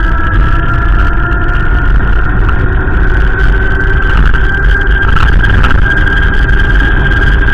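Wind buffeting the microphone in a loud, uneven low rumble, with a steady high whine running through it.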